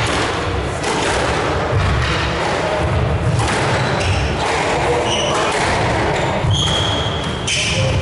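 Squash rally: the ball being struck by the rackets and thudding off the court walls, a series of sharp hollow impacts that ring in the glass-backed court.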